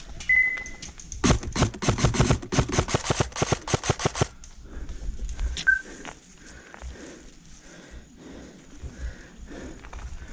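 Airsoft gun firing a rapid string of about twenty sharp shots over some three seconds, followed a moment later by a single shot.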